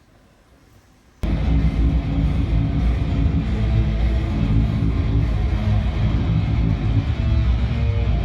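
Loud electric guitar music with bass cuts in abruptly about a second in, after a moment of near quiet.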